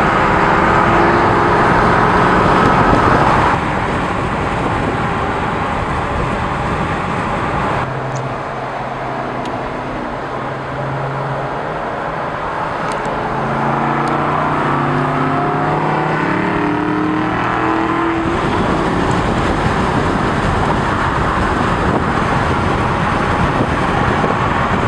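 Aston Martin V8 Vantage's V8 engine and exhaust in a tunnel. The note holds steady for the first few seconds, eases off about four seconds in, then climbs in pitch under acceleration for about five seconds before turning into a broad rush.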